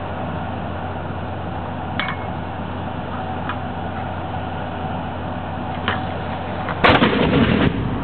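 120mm mortar firing once near the end: a single loud blast as the dropped round launches from the tube, dying away within about a second. A steady low hum and a few faint clicks come before it.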